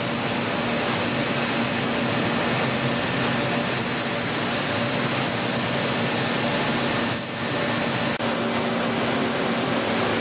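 CNC mill-turn machining center running and cutting metal: a steady machine hum with hiss, and two short high whines about seven and eight and a half seconds in.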